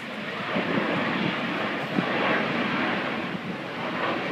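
Jet engine noise from a twin-engine airliner flying low on final approach to land: a broad, even rushing sound that grows louder over the first second and then holds steady as the plane passes.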